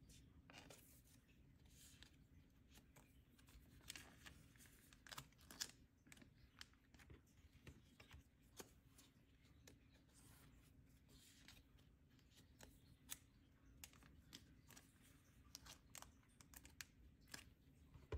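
Faint rustling and scattered light clicks of plastic: photocards being handled and slid into the clear pockets of a binder page. A low steady hum sits underneath.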